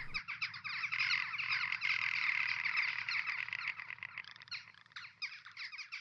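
A dense animal chorus of rapid, high-pitched trilling calls, thinning out and fading away near the end.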